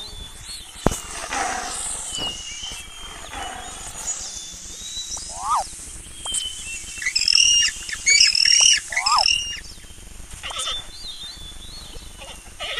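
Animal-call sound effects over birdsong: a short chirp repeats every few seconds, and a loud burst of high, chattering calls comes in the middle.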